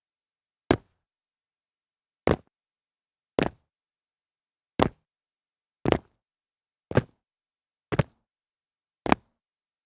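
Shoes landing on concrete after jumps, eight separate landings about a second apart, some with two quick hits as the feet come down one just after the other.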